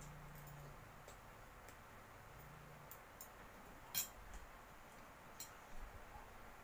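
Quiet eating of spaghetti, with scattered light clicks of a fork against the plate; the loudest click comes about four seconds in.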